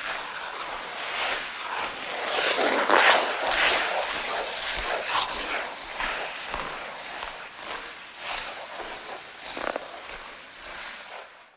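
Ice skate blades scraping and gliding on ice in a run of repeated strokes, the strongest about three seconds in, dying away at the end.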